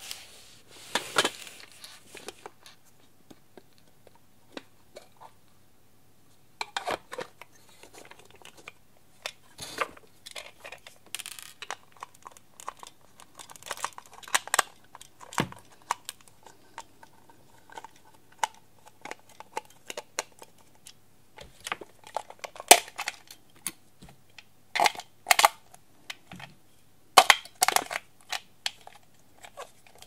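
Hard plastic toy parts being handled, giving scattered sharp clicks, taps and short scrapes, as a small screwdriver works the battery-cover screw on the base of a toy blender.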